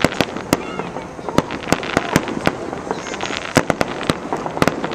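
Fireworks going off: a rapid, irregular run of sharp cracks and pops, several a second.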